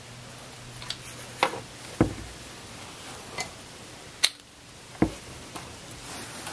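A few light, sharp clicks and knocks, scattered and irregular, as a plastic oil filler funnel's hose is handled and worked down into a scooter engine's dipstick hole.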